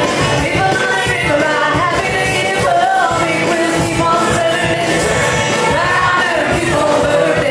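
A pop song: a lead singer's voice carrying a melody over an amplified backing track with a steady beat.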